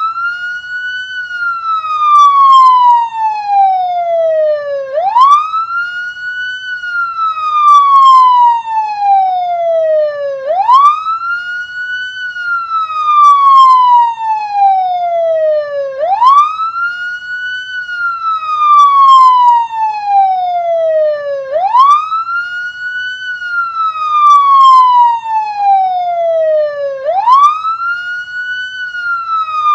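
Police car siren sounding a slow wail: each cycle the tone climbs quickly in about a second, then slides slowly down for four or five seconds, repeating steadily about every five and a half seconds.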